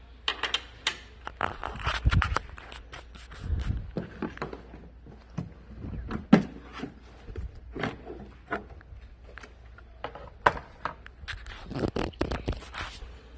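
Plastic engine-bay trim covers and their rubber seal strip being pulled off by hand: irregular plastic clicks, clip pops, knocks and scraping.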